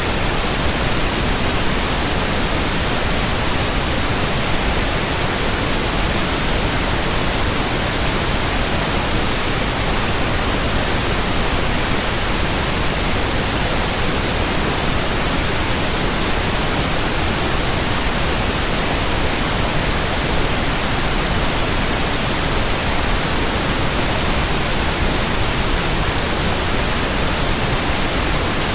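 Steady, even white noise: a continuous hiss across the whole range, with no rhythm, pulses or changes.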